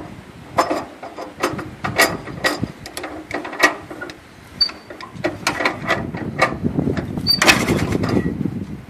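Hand crank of a 1938 Allis-Chalmers B tractor's four-cylinder gas engine clicking and clanking in irregular knocks, with a longer, louder run of cranking near the end. The engine does not catch and run.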